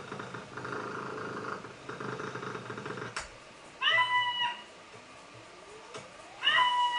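Cat purring with a rough, pulsing rumble for about three seconds, then a click and two short meows, the second near the end.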